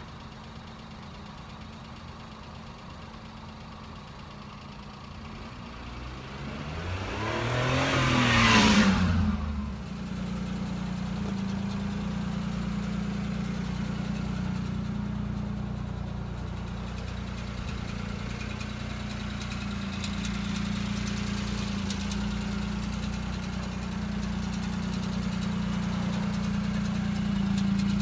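Small three-cylinder kei-truck engine of a 1996 Daihatsu Midget II idling steadily. About six seconds in, an engine rises in pitch to a loud peak and falls back over about three seconds. After that the idle is steadier and louder.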